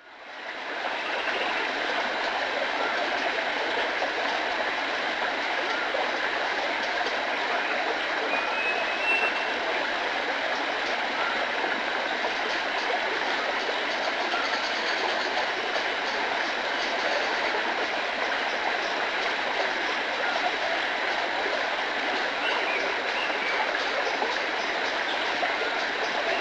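Steady rushing noise at an even level, with a brief faint high chirp about nine seconds in.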